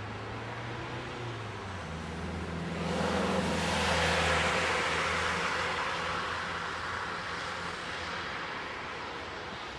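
A vehicle passing by over a steady background hum of city traffic, swelling about three seconds in and slowly fading away.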